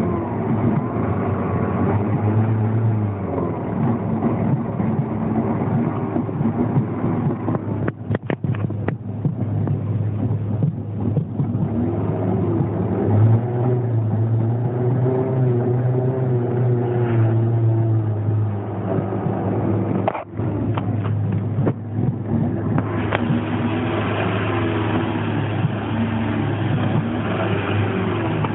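Land Rover Freelander's 1.8 K-series four-cylinder petrol engine running unevenly, its pitch wavering up and down, with brief stutters about 8 and 20 seconds in. This is the rough running of a failing fuel pump starving the engine of fuel pressure.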